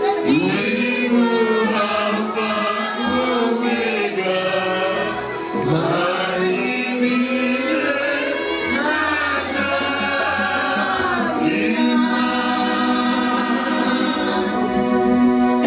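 A choir singing a gospel song, several voices together in held and gliding notes.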